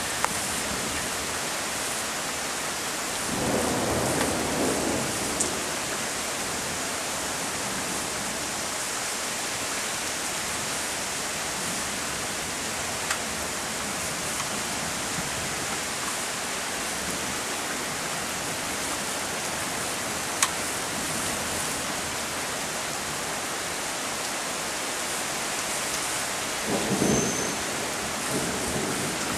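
Steady rain hissing, with two low rolls of thunder, one a few seconds in and one near the end, and a few single sharp ticks.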